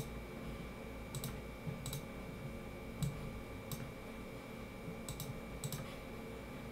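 Computer mouse clicking, about eight sharp clicks spread irregularly over several seconds, some in quick pairs.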